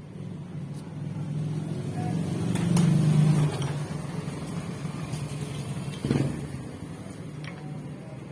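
Low motor-vehicle engine rumble that swells to a peak about three seconds in and then fades, with two sharp clicks.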